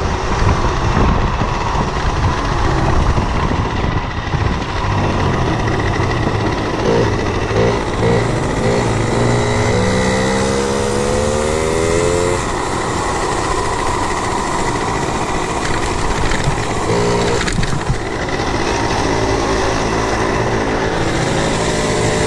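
50cc two-stroke Yamaha moped engine running, its pitch climbing as it is revved several times, most clearly about a third of the way in.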